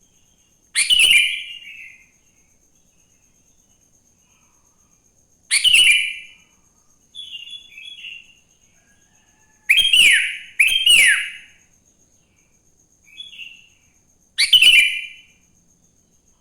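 Sooty-headed bulbul (kutilang) singing in short, loud, bubbly phrases of falling whistled notes, five in all, two of them coming close together, with softer phrases between. A faint, steady high-pitched tone runs underneath.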